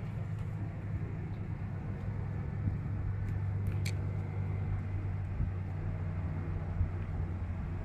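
Steady low engine hum, with a few faint clicks about three to four seconds in.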